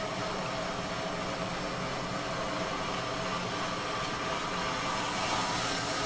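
Car engine idling steadily under the open hood. The engine has a vacuum leak that leaves it running lean, setting a P0171 lean code.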